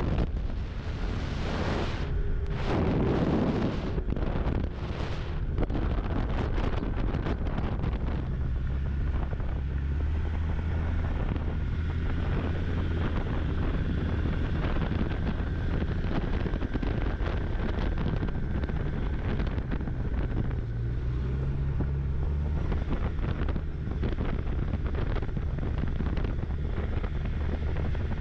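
Snowmobile engine running steadily while under way, with wind buffeting the microphone. A few strong gusts come in the first six seconds, and the engine note rises briefly about two-thirds of the way through.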